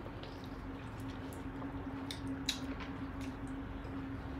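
Quiet wet mouth sounds of people eating geoduck clam: scattered soft clicks, smacks and slurps from chewing and sucking at the shells, over a steady low hum.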